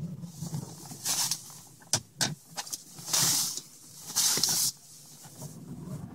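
Car cabin noise while driving: a low engine and road drone, broken by three short, loud hisses and a quick run of clicks in the middle.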